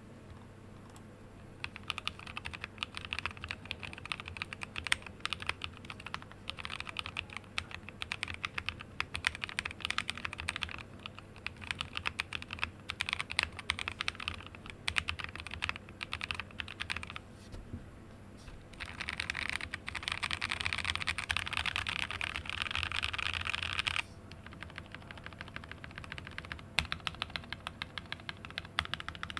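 Mechanical keyboard with lubed NovelKey Cream linear switches on a plateless BM60 hotswap PCB in an acrylic case, typed on continuously: a rapid patter of key clacks as the long-pole stems bottom out. About two-thirds of the way through, the typing turns faster and louder for several seconds, then stops abruptly.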